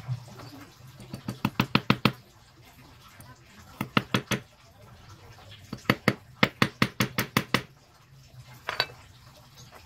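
Hammer tapping on a lead fishing sinker set on a wooden block, in quick runs of light strikes: about eight, then four, then about a dozen, with a single tap near the end.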